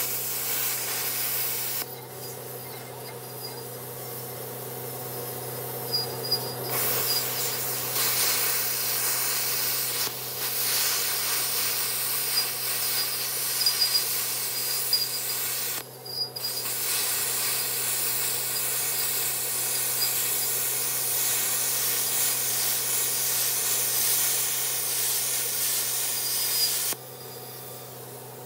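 Plasma cutter gouging out the weld of an old pintle hitch: a loud, steady hiss of the plasma jet with a crackle, over a low hum. It stops for a few seconds about two seconds in, again briefly past the middle, and near the end.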